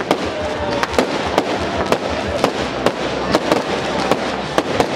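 Professional fireworks display: a rapid barrage of aerial shell bursts with sharp bangs, several a second and irregularly spaced, over a continuous crackle.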